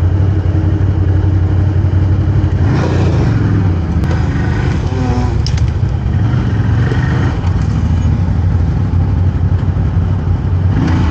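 ATV engine running steadily at low revs as the quad crawls slowly through brush.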